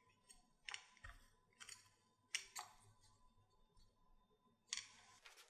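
Silicone spatula pushing flour and almond flour through a stainless steel mesh sieve: four soft, scratchy scraping strokes, spaced about a second apart.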